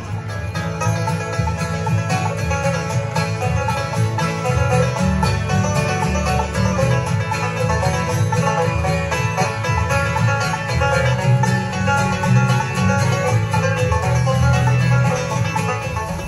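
Live bluegrass band playing: banjo picking over strummed acoustic guitars, with an upright bass carrying the bass line.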